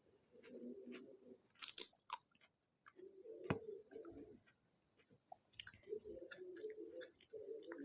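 A person eating pani puri close to the microphone: chewing with wet mouth sounds and small crunching clicks of the crisp puri shells, with one loud, sharp crunching burst about two seconds in and a brief pause near the middle.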